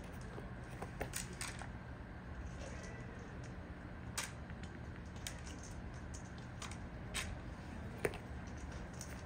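Irregular sharp clicks and taps, roughly one a second, as dry cat food is tipped from a stainless steel bowl into a plastic rain-gutter feeding trough, over a steady low hum.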